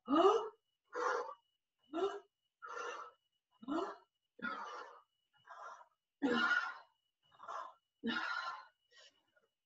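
A woman breathing hard and in rhythm from exertion, with about eleven sharp, audible breaths, roughly one every three-quarters of a second, some with a little voice in them.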